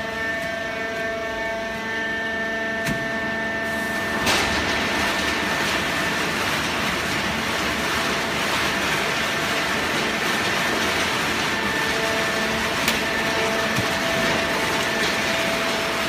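Fully automatic horizontal hydraulic cardboard baler running: a steady hum with several pitched tones, then about four seconds in a sharp click and the sound swells into a loud, even rushing noise that holds, with an occasional click later.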